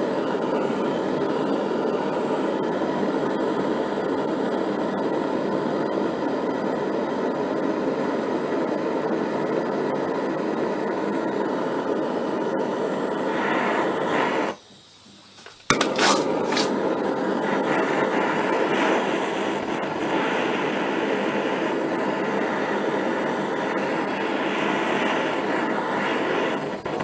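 Handheld gas blowtorch flame running steadily against an aluminium scooter crankcase, heating it for the crankshaft fitting. About halfway it cuts out for about a second, then a few sharp clicks come and the steady flame noise returns.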